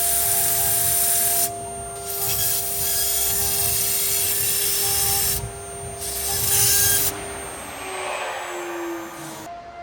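CNC router cutting wood: the spindle's steady whine over the hiss of the bit cutting. The cutting noise drops away sharply and returns a few times, and near the end it fades while a tone slides lower.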